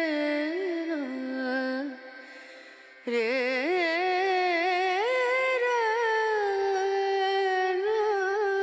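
A song with a solo voice singing long held notes with wavering ornaments and slow slides in pitch. The voice fades about two seconds in and comes back about a second later.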